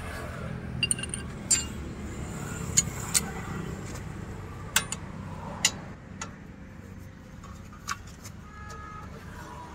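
Scattered sharp metal clinks as a rusty brake disc is worked off a car's front wheel hub and the hub is handled, over a steady low rumble.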